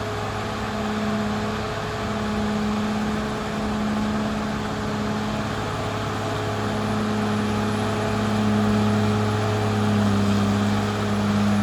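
Caterpillar D6R XL bulldozer's diesel engine running steadily, its pitch dropping a little near the end.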